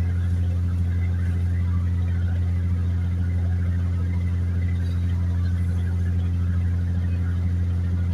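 A motor running steadily at an even speed, a deep unchanging hum.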